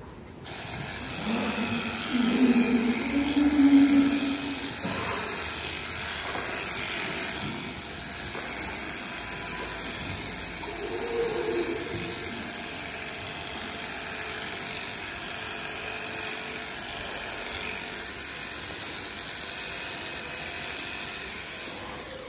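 A machine running steadily, with a thin high whine over it. A louder low sound rises and falls about two to four seconds in, and again briefly around eleven seconds.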